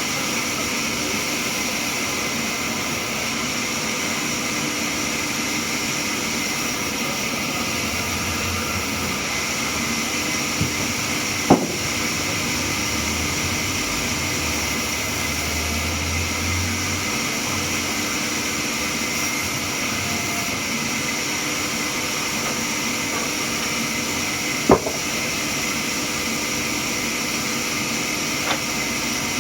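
Sawmill machinery running steadily, a constant mechanical hiss with a few sharp knocks about twelve, twenty-five and twenty-eight seconds in.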